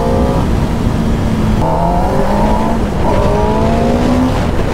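Kawasaki ZX-10R's 998 cc inline-four engine accelerating hard, its pitch climbing and dropping back at each upshift, about three times.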